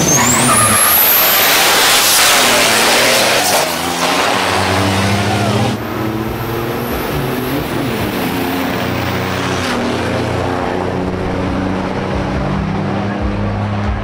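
Big diesel work trucks drag racing: loud engine noise with a high rising whistle over the first couple of seconds. A little past the middle the level drops suddenly to a steadier engine drone.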